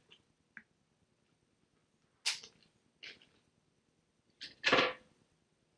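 Handling noise from the plastic Ratchet-String winder and its bit: a few separate sharp clicks and knocks as the parts are moved and set down, with a louder, longer one near the end.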